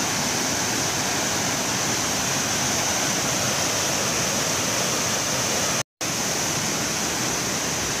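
Third Rufabgo waterfall pouring into its pool: a steady rushing of water. The recording drops out completely for a split second about six seconds in.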